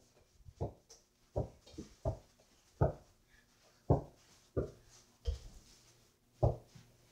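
Mini basketball being dribbled on the floor: about eight dull thumps, roughly one every three-quarters of a second.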